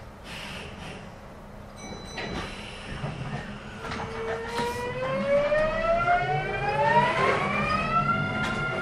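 Kintetsu 9020 series train's Mitsubishi VVVF inverter and traction motors whining as the train pulls away from a station stop: a stack of tones starts about four seconds in and rises smoothly in pitch, levelling off near the end as a second rising whine begins, over a low running rumble that grows louder.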